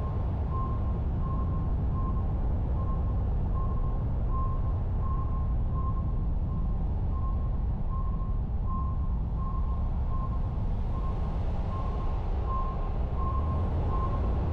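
Sputnik 1's radio signal: an even series of short, high beeps of one pitch, about three every two seconds, over a deep steady rumble.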